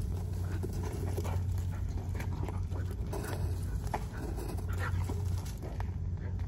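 A Siberian husky making dog noises over a steady low hum, with short scattered clicks.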